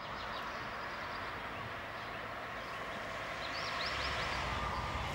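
Road traffic noise with a vehicle approaching, its rumble growing louder from about four seconds in, while birds chirp briefly near the start and again in the middle.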